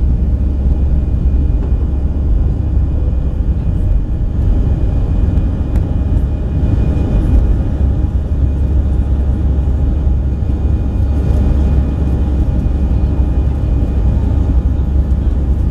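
Airbus A319's jet engines at take-off power, heard from inside the cabin beside the wing: a loud, steady, low rumble during the initial climb just after lift-off.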